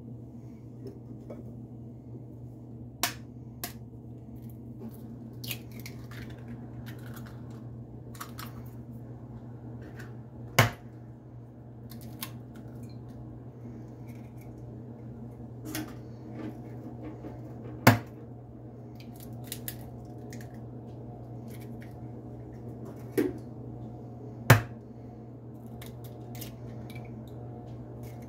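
Eggs tapped one at a time against the rim of a glass bowl to crack them, a sharp tap every several seconds with lighter clicks between, over a steady low hum.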